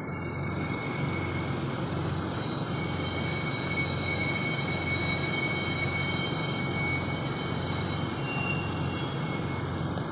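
A steady, low droning rumble with a few faint, thin high tones held above it; the source is unknown, and it is a long-running 'strange noise' that has been going on for quite a while.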